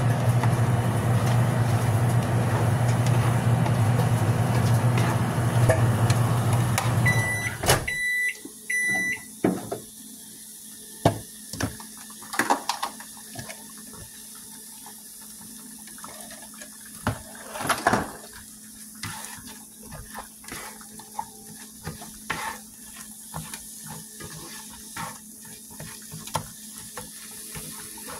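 A steady machine hum with a low drone cuts off about eight seconds in, as three short electronic beeps sound. After that a black plastic slotted spatula scrapes and taps against the pan in scattered clicks, stirring scrambled eggs.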